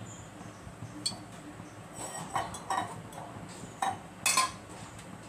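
Kitchen utensils clinking and knocking against a metal kadai: a few scattered light clinks, with the loudest quick cluster about four seconds in.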